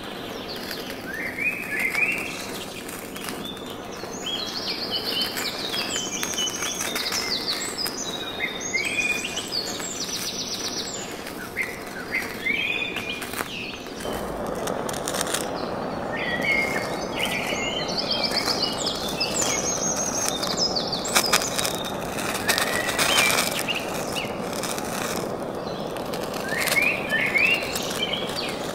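Small birds chirping and singing, short rising chirps and quick trills, over a steady background hiss that grows louder about halfway through.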